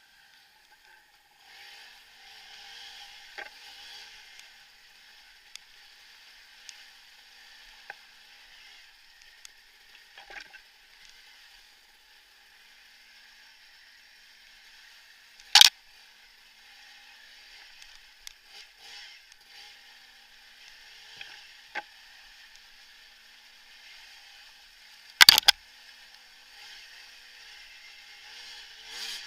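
Bicycle being ridden: a steady hiss of tyres and drivetrain with scattered small clicks, and two sharp, loud knocks, about 16 seconds in and about 25 seconds in.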